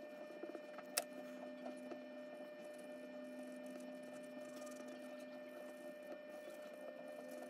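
Charcoal pencil scratching lightly on paper during shading, with a sharp tap about a second in, over a steady faint hum.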